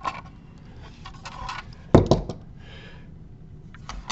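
Steel slip-joint pliers clicking against a plastic enclosure as a nut is squeezed into its hex recess, with one sharp snap about two seconds in as it is pressed home. A few softer clicks follow near the end.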